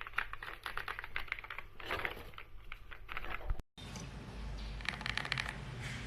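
Rapid typing on a mechanical keyboard: a dense run of key clicks, broken by a brief dropout a little past halfway, then further bursts of keystrokes.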